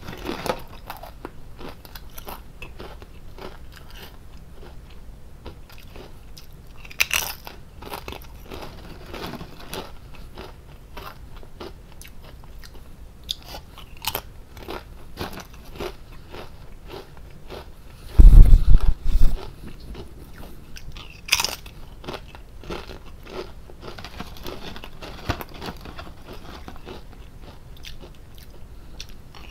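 Lay's potato chips being bitten, crunched and chewed close to the microphone, with a sharper crunching bite every few seconds. About two-thirds of the way through, a loud low thumping lasts about a second.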